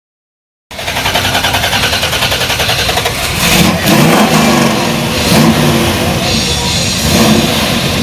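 Classic Chevrolet Camaro SS V8 running, cutting in abruptly under a second in with a pulsing idle, then revved several times from about three seconds in, each rev rising and falling in pitch.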